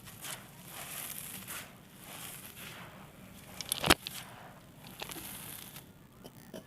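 Crisp mini blocks of dry red sand and clay being crushed and crumbled, giving a run of crackly, gritty crunches with one sharp pop a little after halfway.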